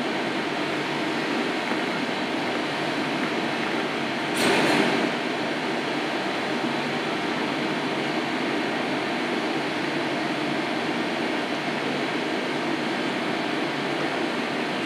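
Steady rushing noise of kitchen ventilation fans running, with a brief louder rush of noise about four and a half seconds in.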